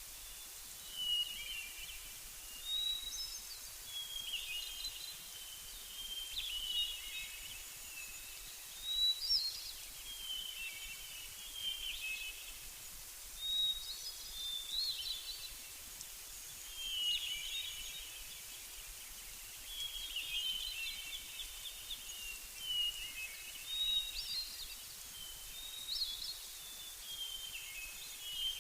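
Songbirds singing: short chirping and warbling phrases, one every second or two, over a steady faint hiss.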